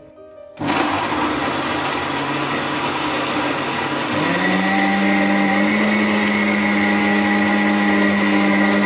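Electric mixer grinder motor running with a steel jar, grinding a thick mix of grated coconut, curd, green chillies and salt. It starts suddenly about half a second in, rises in pitch about four seconds in as the speed knob is turned up, then runs steadily until it cuts off.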